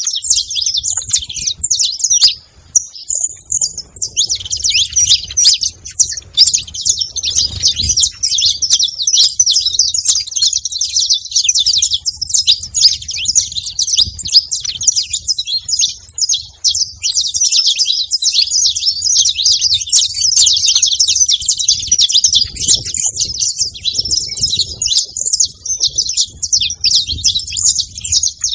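A flock of saffron finches chirping and singing together at once, a dense, unbroken chatter of many overlapping high calls.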